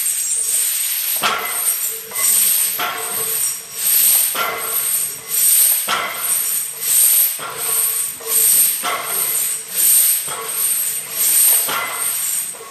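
A lifter's forceful breathing, puffing about once a second through a set of stiff-legged deadlifts under a 365 lb bar loaded with 300 lb of chain. Mixed in are the chains hanging from the barbell clinking as they lift off and settle back on the floor with each rep.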